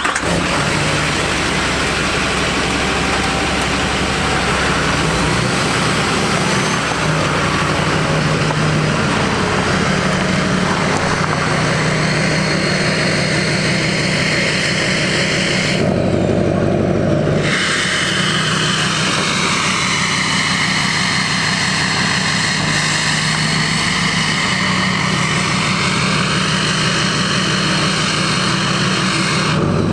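A Chevrolet Silverado 2500HD's Duramax diesel V8 running as the truck creeps along at low speed, with a steady exhaust drone. In the second half, a higher whine dips and rises in pitch over several seconds.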